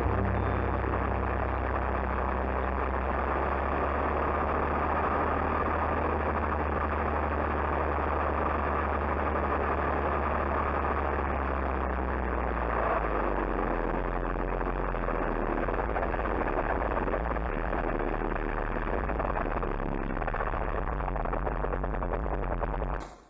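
Small Predator 7 hp single-cylinder engines of a minibike and a stand-up scooter running steadily at riding speed, with a rushing noise over them. The engine note changes about halfway through, and the sound cuts off suddenly at the end.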